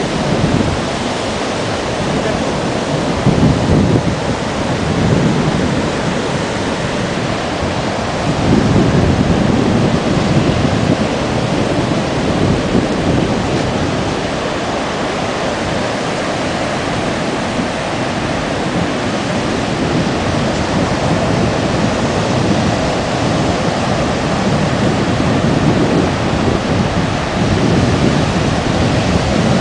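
Sea surf washing in steadily, swelling louder a few times, with wind buffeting the microphone.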